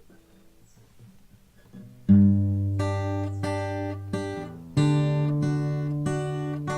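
Tagima Dallas Infinity acoustic guitar played unplugged: a few soft picked notes, then about two seconds in a loud strummed chord that rings on under single picked notes, and a second loud chord struck near the five-second mark.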